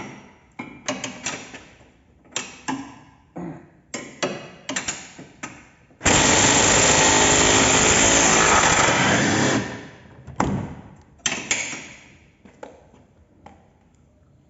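Metal tools clicking and knocking against the suspension, then a power wrench runs hard for about three and a half seconds, starting and stopping abruptly, to free the 18 mm bolt on the control arm, followed by more clicks of tools on metal.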